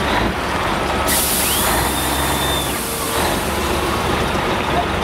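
Pulling semi truck's diesel engine idling with a steady low rumble. About a second in, a loud air hiss bursts out for about two seconds, typical of the air brakes being released, with a brief whistle that rises, holds and falls over it.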